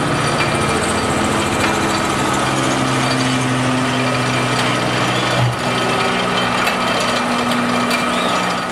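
E&F Miler Hi-Miler roller coaster's chain lift hauling a train up the lift hill: a steady mechanical rattle with a low hum under it.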